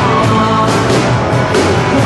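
A rock band playing live and loud, with steady drum and cymbal hits under held guitar or keyboard notes.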